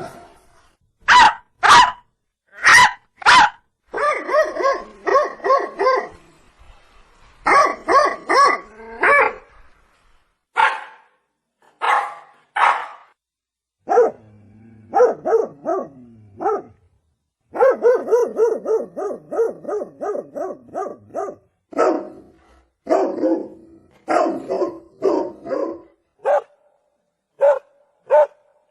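Dog barking: a few single sharp barks, then fast runs of repeated barks broken by short pauses.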